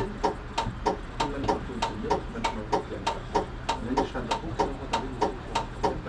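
Fast, even ticking in the driver's cab of an EGT6 tram, about four to five sharp ticks a second, each with a faint short tone, over a low running rumble.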